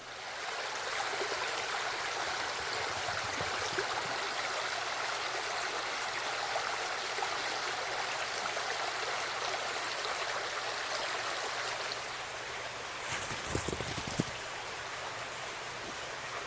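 Creek water rushing and burbling over rocks in a steady, even wash. A few sharp knocks and low thumps come about 13 seconds in.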